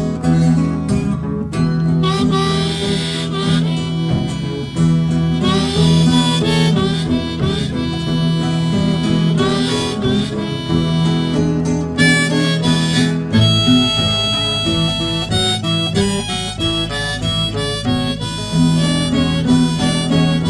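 Blues instrumental break: a harmonica plays the lead over a strummed acoustic guitar, with long held high notes about two thirds of the way in.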